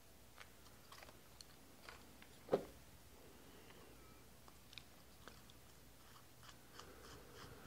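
Faint clicks and taps of a ball-and-socket fishfinder mount's parts being handled and fitted together, with one louder click about two and a half seconds in.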